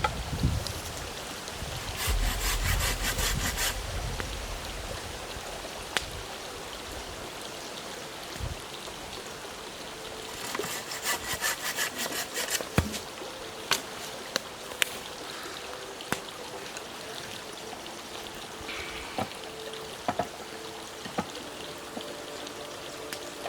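Wood being cut with a hand saw in two short runs of quick back-and-forth strokes, with scattered single knocks and snaps of wood between them.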